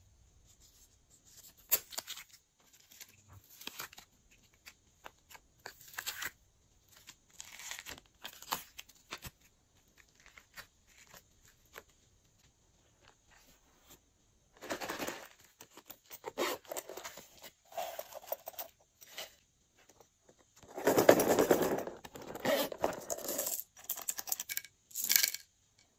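Hands working soft clay over glass dishes of sequins and glitter: sparse faint clicks and rustles at first, then, from about halfway through, louder sticky tearing and squishing as the clay is pulled apart, loudest near four-fifths of the way through.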